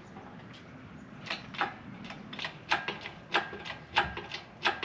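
A run of sharp metallic clicks and clinks, irregular, about two or three a second, getting louder from about a second in. They come from metal hardware being worked on the LS1 engine as it hangs from a shop-crane engine hoist during removal.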